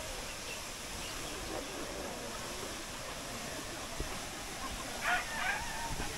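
Water jetting steadily from a burst water pipe, a continuous hiss, with faint distant voices about five seconds in.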